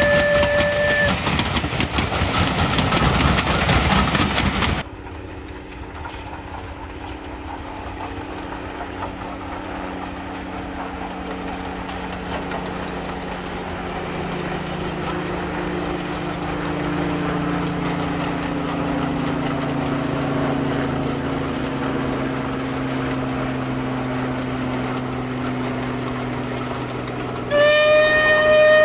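Railway coaches passing close with loud wheel clatter as a train whistle ends about a second in; after an abrupt change about five seconds in, a steam-hauled train is heard running in the distance as a steady low rumble. Near the end the steam locomotive's whistle sounds.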